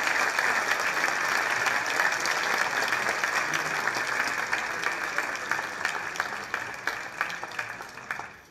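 Audience applauding after a talk: dense clapping that thins out and fades away near the end.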